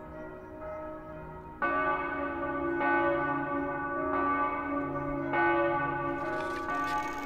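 Church bells ringing, a stack of long sustained tones; a louder peal comes in about one and a half seconds in, with fresh strikes about every second. A broad hiss joins near the end.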